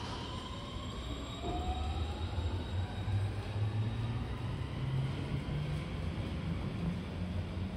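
JR West 223 series electric train pulling out and accelerating away. The traction motors' electronic whine rises steadily in pitch over a low hum that also climbs and grows louder.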